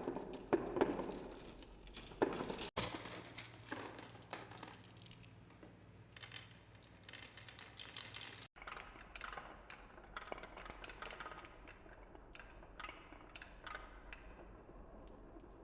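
Balls rolling and knocking down a handmade wooden marble-run course: a stream of irregular clicks and taps. A low steady hum runs under the middle part.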